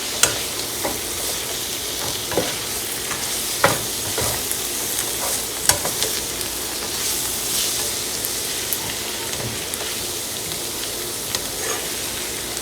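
Sliced mushrooms and onions coated in flour sizzling in a nonstick pan, stirred and tossed with a utensil that clicks against the pan now and then.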